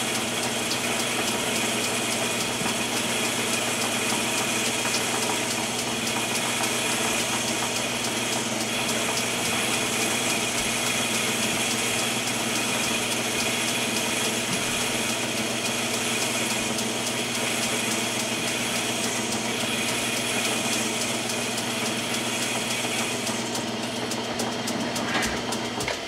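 Metal lathe running steadily, with a continuous machine whine and hiss as a parting tool squares up the shoulder on a spinning rifle barrel. The higher hiss eases off a few seconds before the end.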